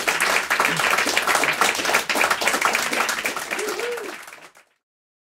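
Small audience applauding with dense, rapid clapping, fading out about four and a half seconds in. A voice briefly calls out just before the fade.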